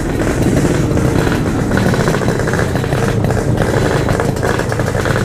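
Yamaha RX-King 135cc two-stroke single-cylinder motorcycle engines running together with a dense, uneven rumble.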